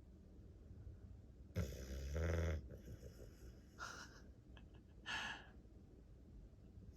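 A sleeping dog snoring: one loud, low-pitched snore about a second and a half in, lasting about a second, then two short breaths near four and five seconds.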